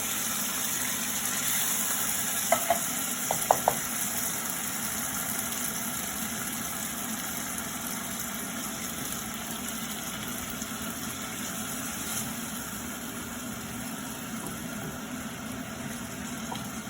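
Drained black beans and tomato-paste sauce sizzling steadily in a hot cast iron skillet, with a few quick metal clinks of the stirring utensil against the pan a few seconds in.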